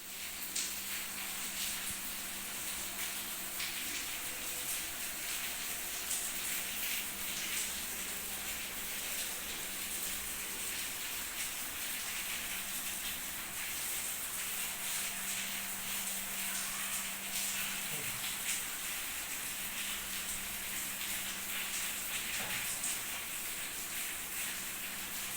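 Steady high-pitched hiss with a faint low hum underneath, an even background noise with no distinct events.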